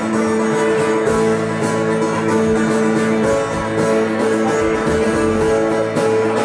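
Live band music with a strummed acoustic guitar up front; deeper low notes join in about a second in.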